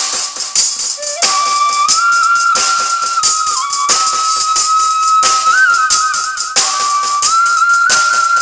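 Side-blown bamboo flute playing a melody of long held notes, with a run of quick ornamental trills in the middle, over a steady shaker and tambourine rhythm.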